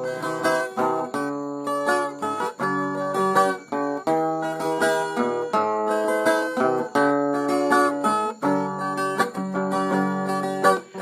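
Viola caipira playing the instrumental introduction to a sertanejo song: a continuous run of plucked notes and strums with no voice yet.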